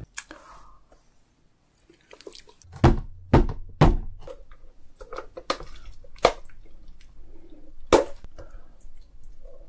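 Mallet knocking on the shell of a cooked giant lobster, three heavy knocks about half a second apart, followed by smaller cracks and snaps as the shell is broken open, with one sharp crack about eight seconds in.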